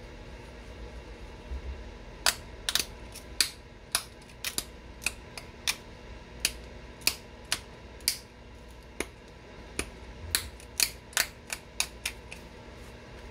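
Flintknapping: sharp, irregular clicks of flakes snapping off a stone point being worked, starting about two seconds in at roughly one to two a second, with a short lull partway through.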